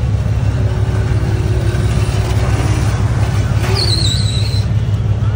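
Car engine exhaust rumbling steadily and loud. A brief high, wavering squeal comes about four seconds in.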